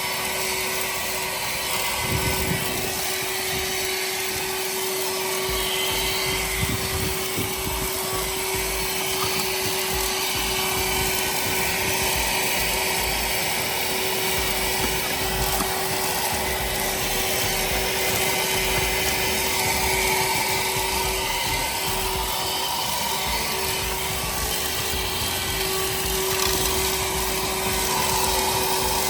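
Michelin MC33375 12-volt, 150-watt handheld car vacuum running steadily, a constant motor whine over the hiss of rushing air.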